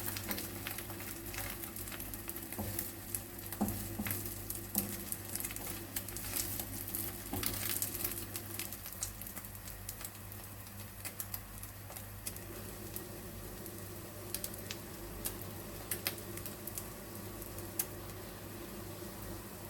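Beaten egg frying in an oiled pan, sizzling with scattered crackles that thin out after the first half, over a steady low hum.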